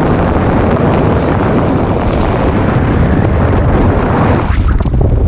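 Loud, steady wind buffeting the microphone from the airflow of a paraglider in flight, a heavy rumble with hiss over it. The hiss thins out briefly near the end.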